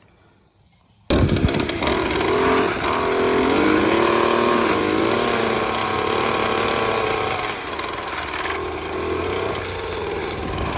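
A gas string trimmer's small engine starts up suddenly about a second in and runs at high speed, its pitch rising and falling as the throttle is worked.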